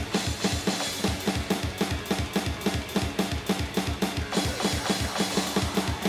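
Sampled drum kit from a touchscreen drum app played along to a melodic death metal song: a fast, steady beat of kick drum and snare hits over the band's pitched instruments.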